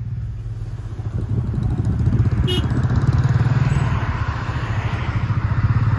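A vehicle's engine running steadily while driving, with road noise, growing louder about two seconds in. A short sharp sound about halfway through.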